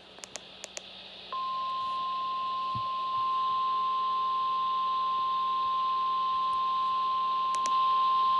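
A few quick clicks, then, about a second and a half in, a single steady high-pitched tone starts and holds, stepping up in loudness twice: the 1050 Hz warning alarm tone of NOAA Weather Radio, which signals that a warning message, here a severe thunderstorm warning, follows.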